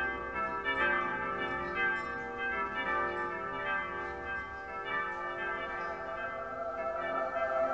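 Bells ringing, struck about twice a second, each tone ringing on over the next so they pile up into a layered chime; near the end a wavering held tone swells in.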